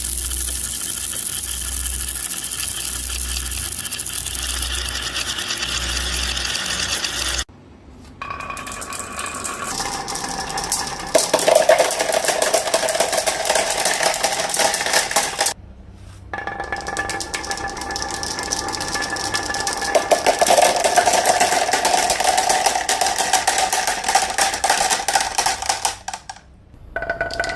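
Marbles rolling and clattering through a toy marble run: a dense, continuous rattle of many small clicks with a ringing tone. It cuts off abruptly three times and starts again.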